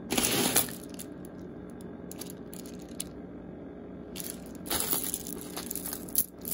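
Costume jewelry clinking and rattling as hands rummage through a pile of beaded necklaces, chains and bracelets. There is a loud burst at the start, a few single clicks, then more rattling about four to five seconds in.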